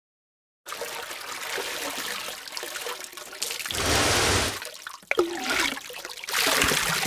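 Dubbed water sound effects, trickling and pouring, starting suddenly after a moment of dead silence, with a louder gush about four seconds in.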